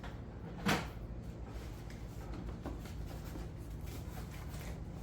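Objects being handled: one sharp knock under a second in, then a few faint clicks and taps over a low steady hum.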